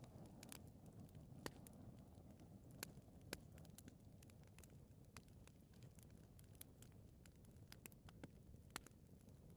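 Fire burning in a fireplace, faint: a steady low rumble of flame with irregular sharp crackles and pops scattered through it, a few louder than the rest.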